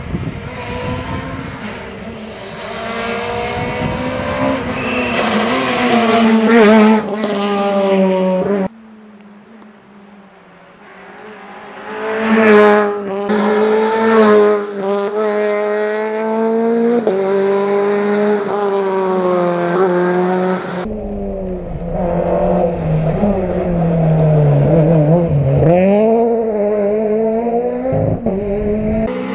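Peugeot 208 VTI rally car's engine revving hard on a stage, its pitch rising and falling with gear changes and throttle. The sound comes in three clips with sudden cuts about 9 and 21 seconds in.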